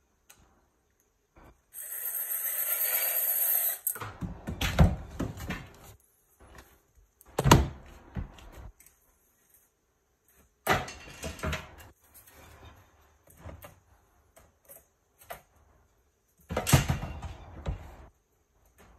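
Metal parts of a roof cargo basket frame being handled: a scraping slide of about two seconds, as of a plate sliding along a rail, followed by several clanks and knocks of the parts being fitted and set down.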